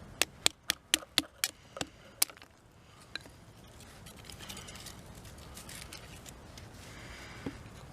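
A quick run of about eight sharp clicks in the first two seconds, slowing slightly toward the end, followed by a faint steady hiss.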